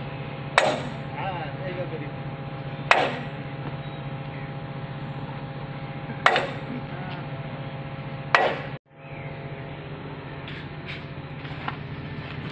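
Four hammer blows on steel, a couple of seconds apart, each with a short metallic ring, over a steady low machine hum.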